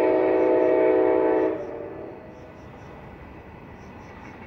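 Freight locomotive air horn sounding one long chord of several notes, cutting off about a second and a half in with a short echo trailing away. A quieter steady rumble remains afterwards.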